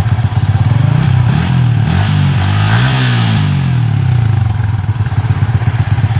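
Yamaha FZ150i's single-cylinder four-stroke engine idling through its stock muffler with the baffle removed. It is blipped lightly once, then revved up once, peaking about halfway through, before falling back to idle.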